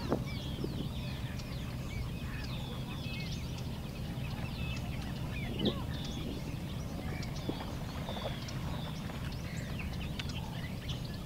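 Many small birds chirping and calling, with short quick rising and falling notes all the way through, over a steady low rumble. A single soft knock comes about halfway.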